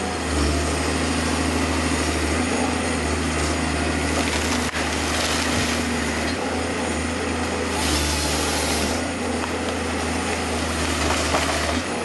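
Rottne H14 forest harvester's diesel engine running steadily under hydraulic load while the SP 561 LF harvester head feeds and processes a pine trunk. Two louder bursts of noise about five and eight seconds in come from the head's chain saw cutting the trunk into logs.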